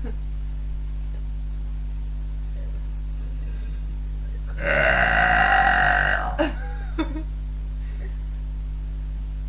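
A girl lets out one long, loud burp lasting about a second and a half, about halfway through, followed by two short vocal sounds. A steady low hum runs underneath.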